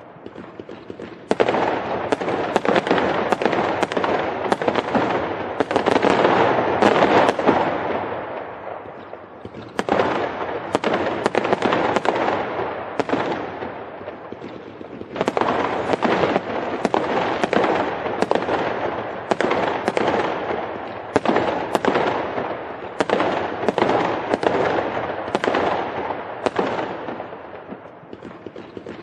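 Fireworks going off in rapid volleys: many sharp bangs over continuous crackling, in three long runs that each tail off before the next begins.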